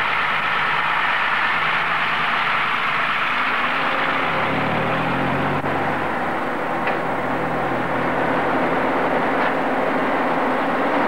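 Steady airport ramp noise: the engines of ground service vehicles and aircraft machinery running together as a constant roar. A low engine note shifts in pitch about four to five seconds in.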